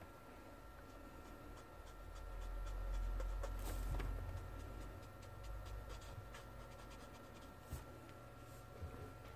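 Faint scratching of a felt brush-marker tip stroking over kraft paper as grey is blended in. A low rumble swells for a couple of seconds in the middle.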